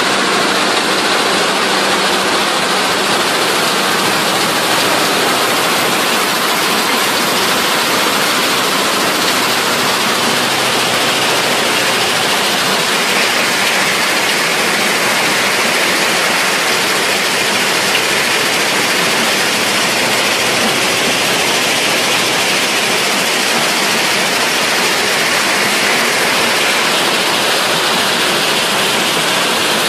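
Rock-crushing production line with a jaw crusher running: a loud, steady, dense noise of machinery and broken stone, with no distinct knocks or rhythm. It turns slightly brighter in the upper middle from about halfway through.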